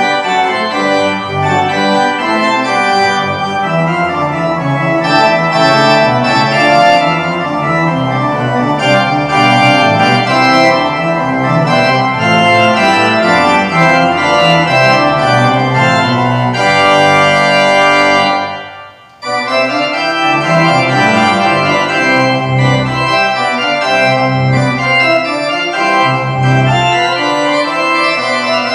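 Church organ playing full chords. About two thirds of the way in, a held chord dies away in the room's reverberation, there is a pause of under a second, and the playing starts again.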